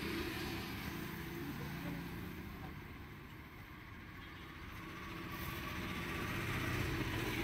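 Road traffic: vehicles running past, the rumble easing off in the middle and growing louder again as another vehicle comes close near the end.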